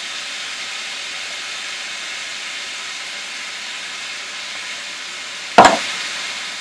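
Ground beef and onion sizzling in a frying pan, a steady hiss, with one sharp knock about five and a half seconds in.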